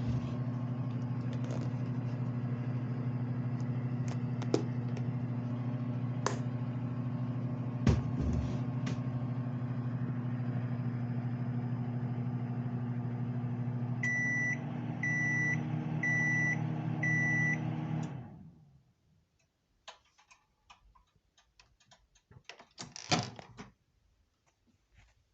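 Microwave oven running with a steady electrical hum, then beeping four times, about once a second, to signal the end of heating; the hum winds down a few seconds later and the oven falls quiet. Small clicks follow, with a brief louder knock near the end.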